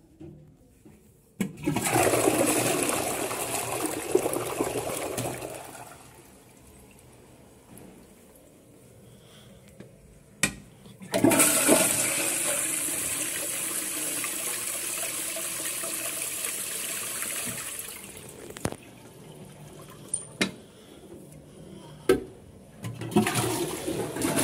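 Toilet flushing repeatedly. Water rushes for about four seconds near the start. About eleven seconds in, a sharp click sets off a longer flush that swirls for about seven seconds and tapers off. A few more clicks follow, and another rush of water begins near the end.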